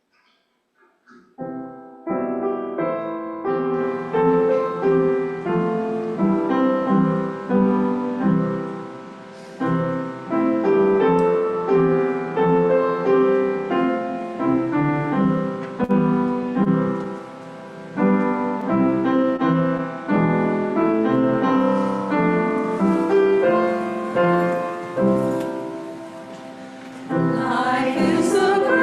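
Piano playing a hymn tune through once as an introduction, entering about a second and a half in. Near the end, the congregation begins to sing along.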